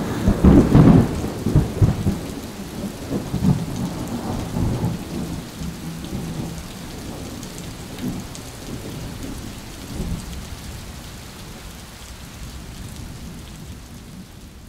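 A thunderclap rumbling over steady rain, loudest in the first two seconds and then dying away slowly until it fades out near the end.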